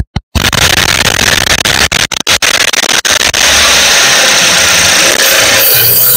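The supercharged 3.0-litre V6 of a stage 1-tuned 2016 Audi S4, recorded from under the engine by the aftermarket intake while driving. It comes across as a loud, harsh rush of noise with no distinct whine. Several brief dropouts from noise-filter processing break it near the start and again around the middle.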